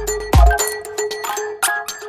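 Background music with a steady beat: repeating mallet-like melodic notes over bass and drum hits.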